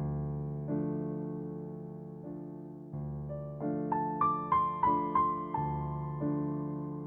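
Background piano music: slow sustained chords, with a short run of higher notes a few seconds in.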